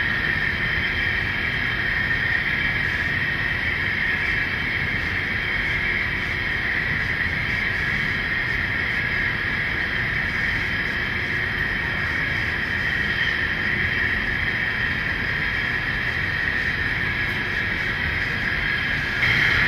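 Model diesel locomotives running steadily along the layout track, making a constant even running sound with no breaks.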